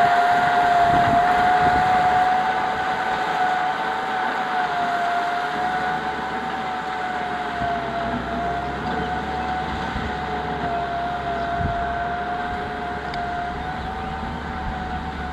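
Kubota M6040SU tractor's diesel engine running under load while ploughing, with a steady whine that wavers slightly in pitch over a rumble, slowly fading.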